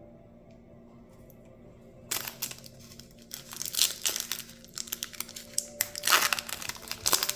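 Booster pack wrapper being torn open and crinkled by hand. The crackling starts about two seconds in and comes in irregular bursts.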